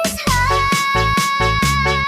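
Background music: upbeat electronic dance track with a steady bass beat and a held synth melody.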